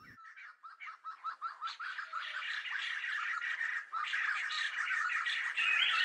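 A group of kalij pheasants calling: a string of short, rapid chirping notes that starts sparse and builds within a couple of seconds into a steady, overlapping chatter.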